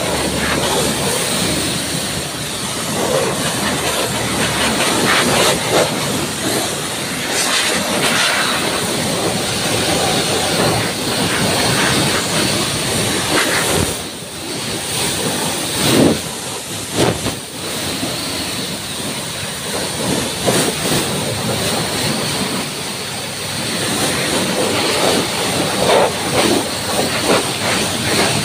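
Pressure washer jet spraying water onto a motorcycle's exhaust, footrests and spoked wheel: a loud, steady hiss of spray with spattering as the jet moves over metal and tyre. It dips briefly about halfway through, then comes back with a few sharper splashes.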